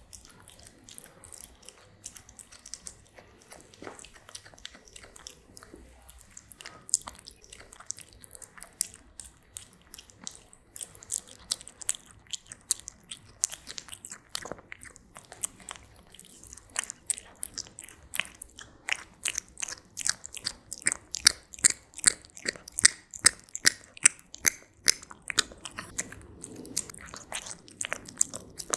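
A cat chewing its food close to the microphone, a run of crisp, crunching bites. The crunches come sparsely at first, then grow louder and quicker in the second half, about two or three a second.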